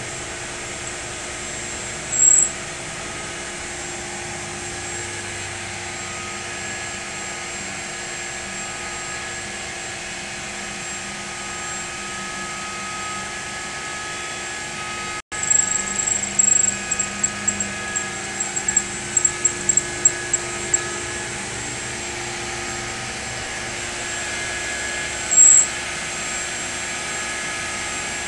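Lathe turning a metal peg while a CNC router runs at the same time: a steady mechanical whir with several humming tones. Short high-pitched squeaks come twice on their own and in a quick irregular string over several seconds near the middle.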